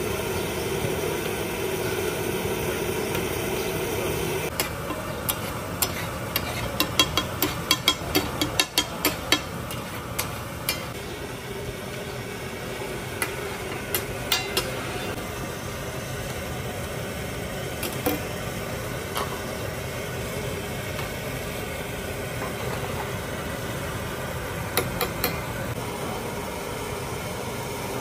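Metal spatula clicking and scraping on a large steel tawa as mutton liver in tomato masala is stirred: a quick run of clicks for about six seconds, then scattered single taps. A steady background noise runs under it.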